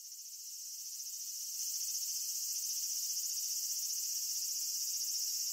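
A steady, high-pitched chorus of summer insects shrilling, swelling in over the first two seconds and then holding level.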